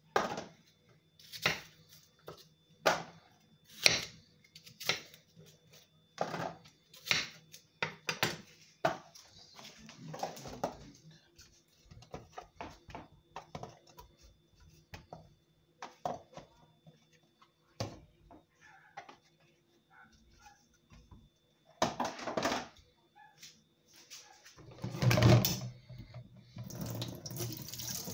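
Knife chopping fruit on a cutting board, a sharp stroke a little more than once a second for about the first nine seconds. Near the end, bursts of water running from a kitchen tap into a sink, the loudest about three seconds before the end.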